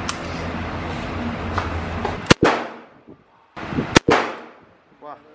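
Two revolver shots, about a second and a half apart, each a sharp crack followed by a short echo.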